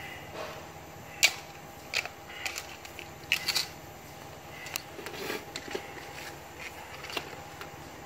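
Handling noise from a white plastic RV shore power cord hatch being slid along the cord and held up to the opening: scattered sharp plastic clicks and knocks, several spread out, with no rhythm.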